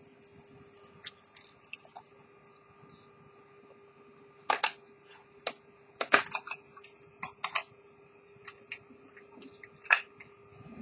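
Irregular sharp clicks and light knocks of handling at a watchmaker's bench, the loudest around the middle and near the end. In the first second the faint, fast ticking of the open pocket watch's escapement is heard, about five beats a second.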